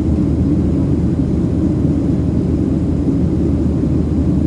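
Steady low rumble of a Boeing 737-700 in flight, its CFM56-7B engines and airflow heard from inside the passenger cabin.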